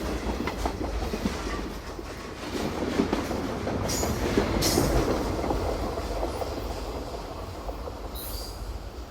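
A steady heavy rumble that swells about halfway through and then slowly fades, with short high hissing or squealing bursts near the middle and again near the end.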